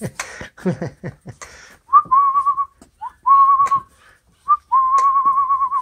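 A person whistling three warbling, high notes, each starting with a short upward slide; the last and longest runs about a second. Scattered soft clicks and scuffles fill the gaps between the notes.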